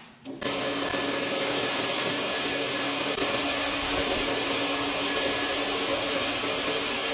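A vacuum cleaner switching on about half a second in and running steadily: a loud, even rush of air with a steady motor hum.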